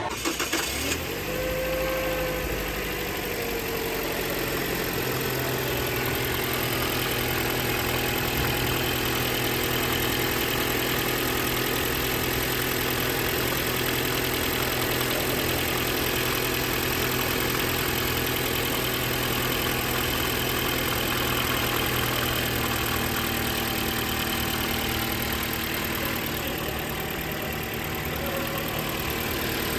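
Toyota four-cylinder petrol engine running after its water pump has been replaced: its speed settles within the first few seconds, then it idles steadily.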